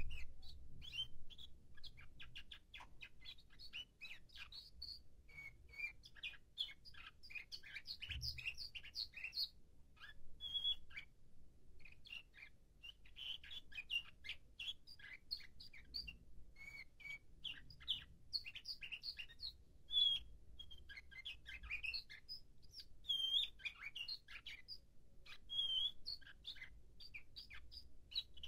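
Nightingale-song canary singing a practice song: quick runs of clicks and trills mixed with short whistled notes, with a brief pause near the middle. It is in its arrangement (tertip) phase, still putting the order of its song together, so it sings softly and in fragments.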